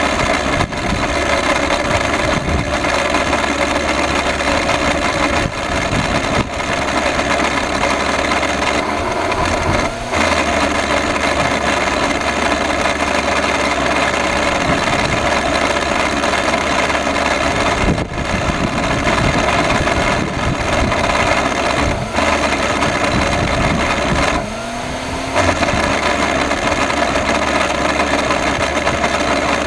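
Electrolux vacuum cleaner running steadily with its bad motor, a loud mechanical whine. It stumbles briefly a few times; about three-quarters of the way through, it drops and then picks back up with a short rising whine.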